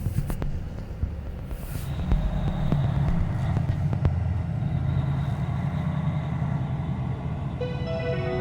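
Semi-truck running with a steady low rumble, heard from the cab, with a short hiss about two seconds in. Music comes in near the end.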